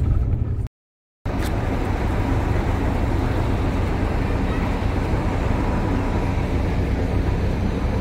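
Steady low engine and road rumble inside a moving tour bus, cut off suddenly by a half-second of silence about a second in. A steady low rumble and hiss of vehicle noise follows.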